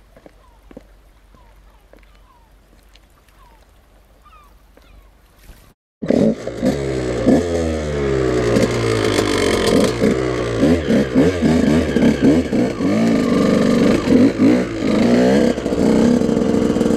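A quiet stretch with a few faint short chirps, then about six seconds in a sudden cut to a KTM EXC 125 two-stroke dirt bike engine running loud, its pitch rising and dropping again and again as it is revved and ridden.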